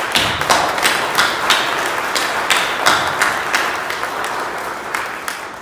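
A congregation applauding, the clapping tapering off and dying away near the end.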